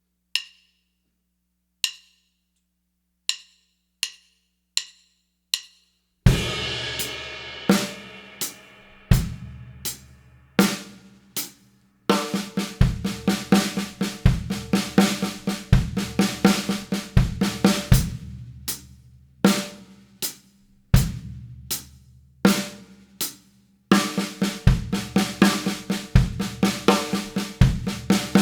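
Drum kit (Pearl Music City Custom with steel snare and Soultone cymbals) counted in with a few light clicks, then entering with a crash about six seconds in. It alternates a measure of groove with a measure of six-stroke roll fill (right, left, left, kick, right, left), the bass drum replacing the fourth stroke.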